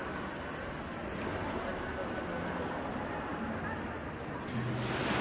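Outdoor street ambience: indistinct distant voices over a steady wash of noise, with a motor vehicle's engine growing louder about four and a half seconds in as it comes closer.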